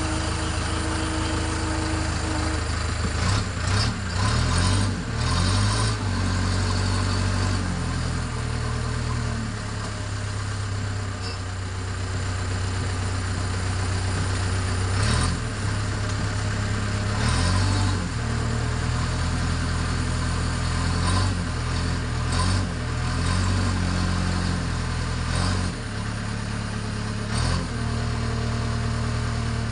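Backhoe's diesel engine running, revving up and settling back again and again as it works, with short knocks every few seconds.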